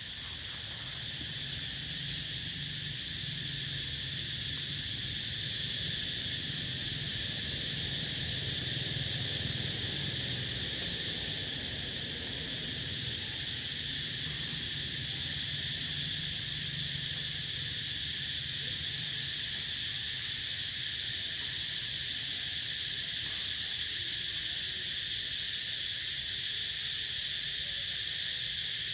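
Chorus of insects keeping up a steady, high-pitched drone, with a low hum underneath.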